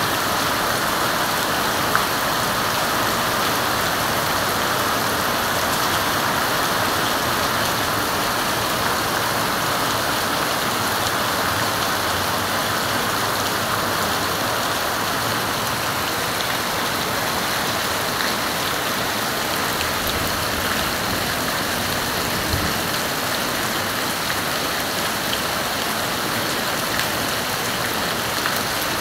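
Rain falling steadily onto a flooded paved path, an even hiss of drops splashing into standing water.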